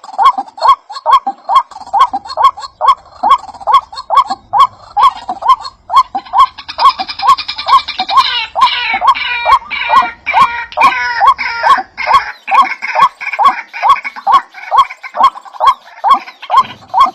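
A bird's short call repeated in a fast, very even rhythm, about two or three a second, each with a sharp click. Higher twittering calls join in the middle.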